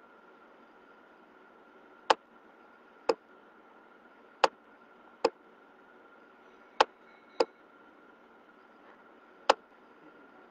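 About seven sharp computer mouse clicks at uneven intervals, a second or more apart, over a faint steady high hum.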